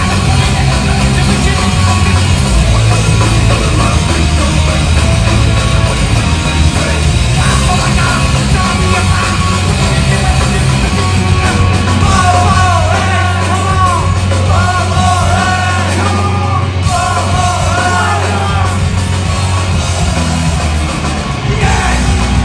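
Heavy metal/punk band playing live and loud: distorted electric guitars, bass and drums, with yelled vocals over the top.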